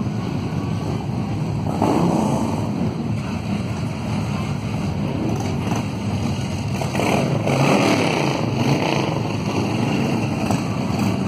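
Many motorcycle engines running together, a steady low-pitched engine sound that swells louder about two seconds in and again around seven to nine seconds in, with wind on the microphone.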